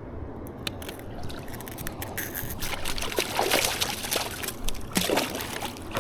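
Water splashing and sloshing close by in a few irregular bursts, after some sharp clicks and taps in the first couple of seconds.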